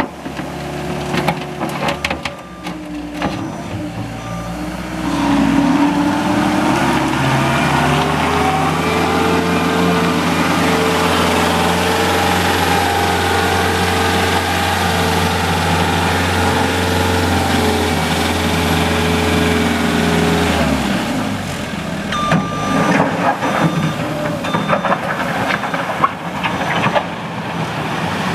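Tracked skid steer's diesel engine running, revving up about five seconds in, holding high revs, then dropping back after about twenty seconds. Irregular knocks and clatter follow near the end.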